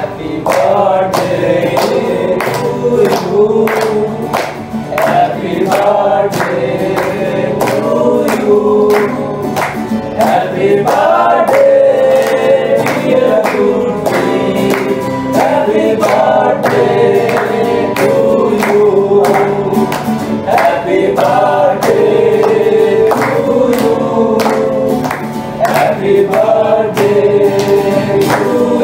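A group of men singing a song together in unison to a strummed acoustic guitar, with hand claps keeping the beat.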